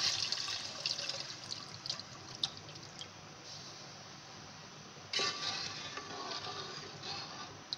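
Yogurt and gram-flour batter pouring into a metal pot of fried masala, a liquid hiss that fades away over the first few seconds. About five seconds in, a wooden spatula starts stirring the mixture with a louder sloshing sound.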